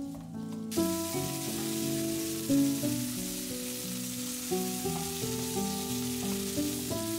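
Cubed potatoes sizzling in hot oil in a frying pan as a wooden spatula turns them, over background music with held notes. The sizzle sets in abruptly under a second in.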